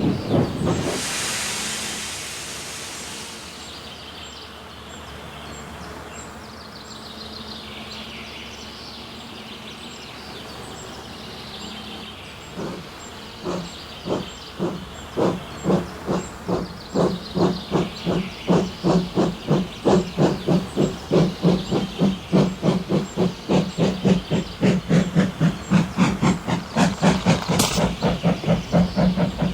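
Steam locomotive sound effect: a loud burst of hissing steam about a second in, then exhaust chuffs that begin slowly around halfway and quicken to a steady beat as the engine gets under way.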